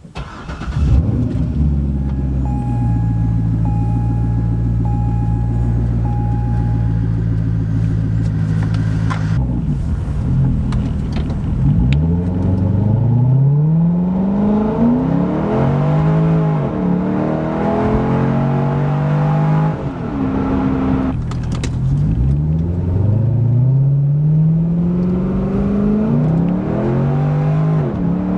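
A 2012 Corvette Grand Sport's 6.2-litre V8 through a Borla ATAK exhaust, heard from inside the cabin. It holds a steady note at first while a chime beeps five times. Then it accelerates hard, its pitch rising through several gears with a drop at each shift.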